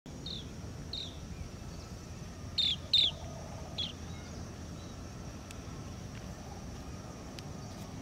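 Outdoor ambience with a bird giving short, falling chirps, five in the first four seconds, the two loudest close together about three seconds in, over a steady high insect drone and a low rumble of wind.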